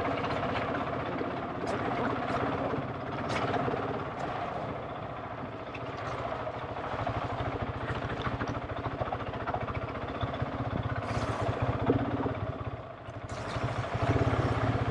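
GasGas ES700's single-cylinder four-stroke engine running under a riding throttle, the level rising and falling, with a brief drop near the end before it picks up again.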